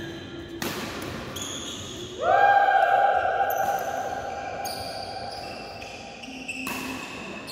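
Badminton doubles rally on an indoor court: rackets hitting the shuttlecock and short high squeaks from shoes on the court. About two seconds in, a loud held tone starts and fades away over the next two seconds.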